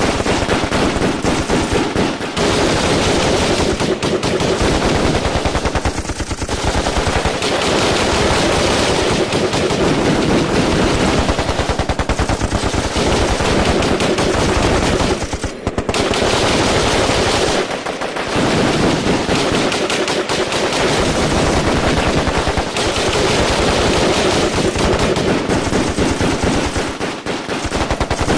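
Sustained automatic gunfire in a firefight: rapid shots follow each other almost without a break, with brief lulls about halfway through and again near the end.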